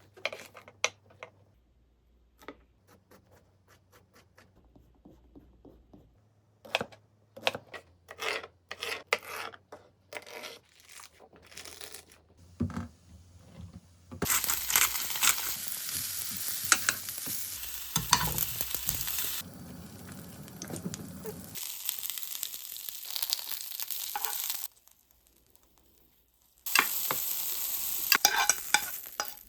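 Vegetables sizzling as they grill in a hot oiled pan, a dense steady hiss that starts about halfway through, cuts off suddenly, and comes back near the end. Before it come scattered short clicks and knocks of kitchen handling.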